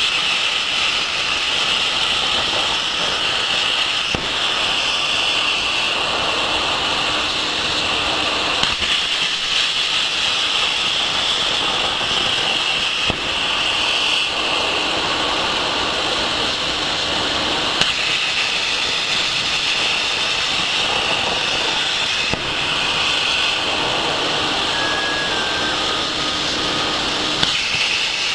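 Plasma cutting torch on a portable CNC cutting machine, its arc hissing steadily and loudly while cutting metal.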